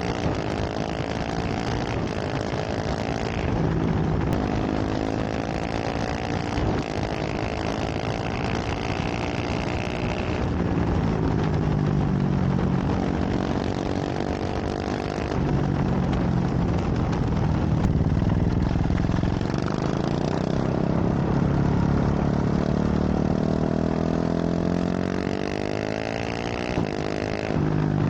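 KTM 690 SMC R single-cylinder engine through a full LeoVince exhaust, under way with the engine pitch rising and falling several times as it accelerates, shifts gear and eases off. Wind and road noise run underneath.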